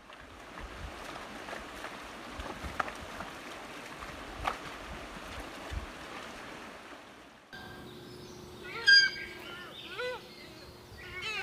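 A steady noisy background with a few sharp clicks, then, after an abrupt change, repeated short animal calls that rise and fall in pitch, over a low steady hum.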